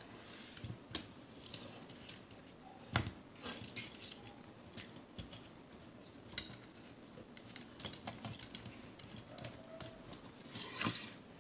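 Faint clicks and light rattles of a hard-plastic Transformers action figure (Optimus Prime with Jetfire armour) being handled, with one sharper knock about three seconds in and a brief rustle near the end.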